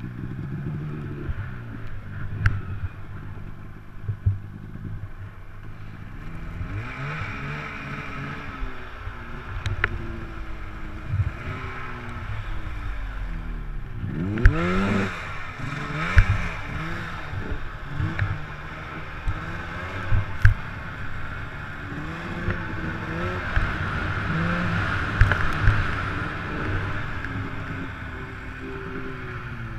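Arctic Cat M8 turbo snowmobile's two-stroke engine revving up and down over and over while riding through powder. Occasional sharp knocks and a steady hiss are heard over the engine.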